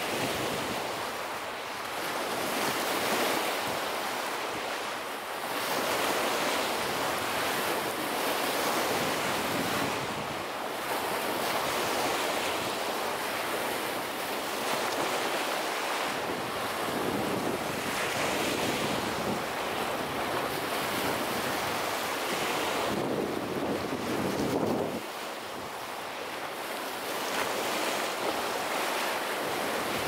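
Small lake waves breaking and washing up a sandy shore, a continuous rushing wash that surges and eases every few seconds.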